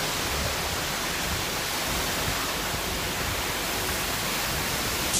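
Heavy rain pouring in a severe thunderstorm, a steady, even hiss with no separate drops or thunder standing out.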